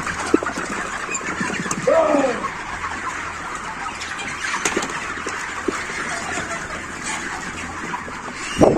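A large flock of broiler chickens in a poultry house, a constant crowded chatter of chirps and clucks over a steady low hum.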